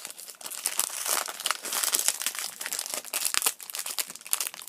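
Plastic packaging crinkling and tearing in quick, irregular crackles as a new speed cube is unwrapped by hand.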